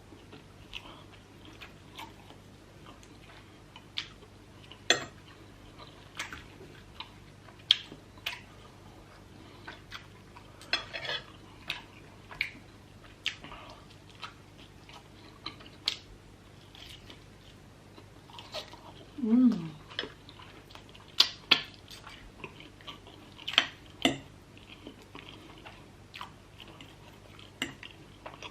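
Close-miked eating of spicy instant noodles and chicken: chewing, with irregular clicks and clinks of cutlery against a dish. About two-thirds of the way through there is one short sound falling in pitch.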